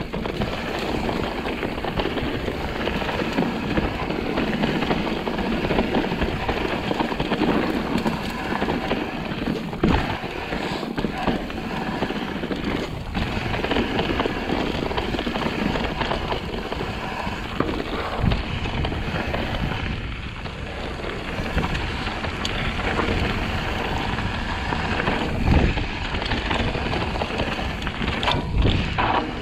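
Mountain bike descending a steep, loose, rocky trail: tyres crunching over dirt and stones and the bike rattling, with several sharp knocks from hits, and wind on the microphone.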